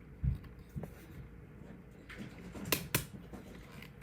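Magnetic finger rings being handled: a soft thump, then small sharp clicks, the loudest two close together near the end, as the rings fail to work.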